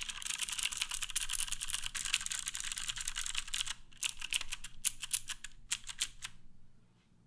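Matrix 8XV1.0 Reborn mechanical keyboard with clicky Cherry MX Green switches on a top-mounted aluminium plate and GMK keycaps, typed on fast: a dense stream of keystroke clicks for about four seconds, then three short bursts of keystrokes, stopping shortly before the end.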